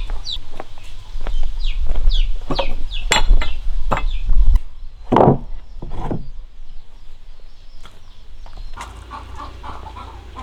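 Chickens clucking, with short high falling peeps like chicks' calls in the first few seconds, and a few sharp knocks among them.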